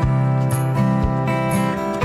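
Background music led by a strummed guitar, over a steady beat.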